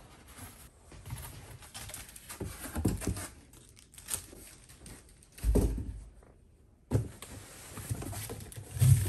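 Binders and other items being lifted out of a cardboard box and set down: cardboard and plastic covers rustling and scraping, with a few dull thumps, the loudest about five and a half seconds in.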